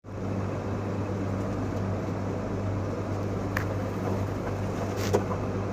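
Steady low electrical or motor hum, with a couple of faint clicks about three and a half and five seconds in.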